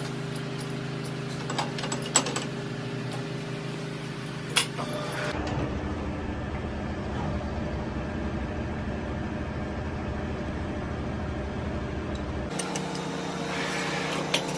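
Steady hum of lathe-shop machinery, its tone changing abruptly twice, with a few sharp metal clicks, the loudest about 2 and 4.5 seconds in, from a chuck key tightening a lathe's four-jaw chuck on a gear shaft and from setting the tool post.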